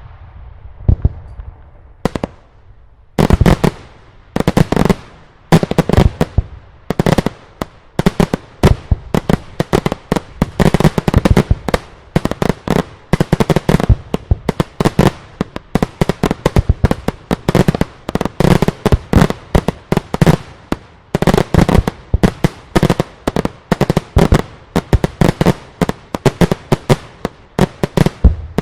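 Daylight fireworks display: loud aerial shell bursts, a few separate bangs at first, then from about three seconds in a rapid barrage of several explosions a second that keeps up.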